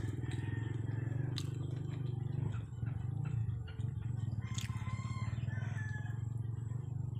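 A small engine running steadily with an even low pulsing, with faint chicken calls over it about two-thirds of the way through.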